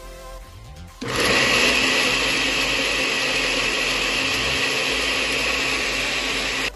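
Philco All in One Maximus food processor's motor running with the citrus-juicer cone fitted. It switches on abruptly about a second in, runs steadily, and cuts off near the end.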